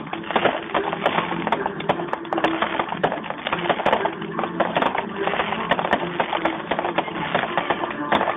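Fireworks going off in quick succession: dense crackling with many sharp, overlapping pops.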